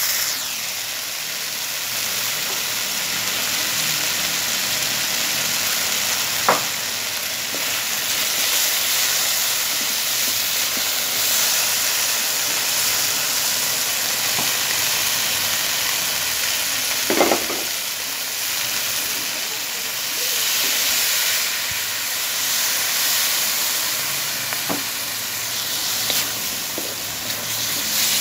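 Food sizzling as it fries in a steel wok, a steady hiss, with a few sharp knocks now and then, about three over the stretch.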